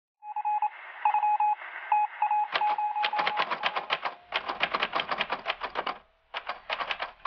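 Morse code beeping: a single steady tone keyed in short and long pulses over a faint hiss, like a telegraph signal on a radio. From about two and a half seconds in, the rapid clatter of a manual typewriter's keys takes over, with a short pause near the end.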